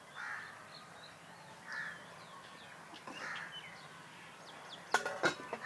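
Crows cawing, three caws about a second and a half apart, with small birds chirping faintly. A quick run of sharp knocks near the end is the loudest sound.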